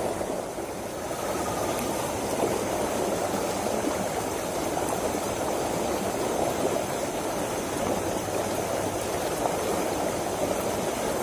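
Fast water rushing steadily down a narrow concrete-edged irrigation channel.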